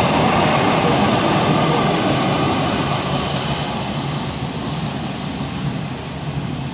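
Siemens Duewag U2A light rail train running past on the rails, a steady rumble and hiss that fades gradually as it moves away.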